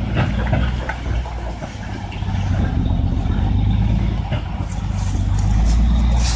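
Heavy diesel truck engine running, a low, steady hum that grows louder from about two seconds in and is loudest near the end, with a few knocks and rattles over it.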